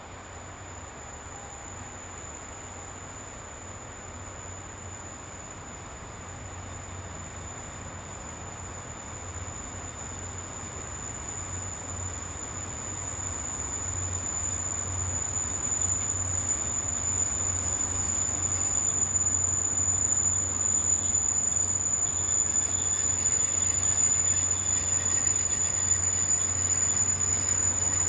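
A JR Hokkaido DD51 diesel locomotive hauls a train of passenger coaches into a station, its engine rumble and the rolling of the train growing steadily louder as it comes up alongside. A thin, steady high whine sounds over it throughout.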